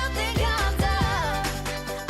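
Upbeat pop song playing: a steady drum beat under a bass line, with a melody that slides up and down in pitch.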